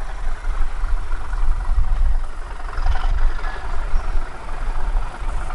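Distant diesel locomotive running as it approaches along the line: a low, uneven rumble under a steady mid-pitched hum.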